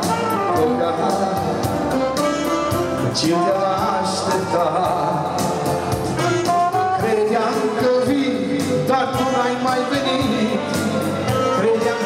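Live dance-band music: a saxophone plays the melody over keyboard accompaniment.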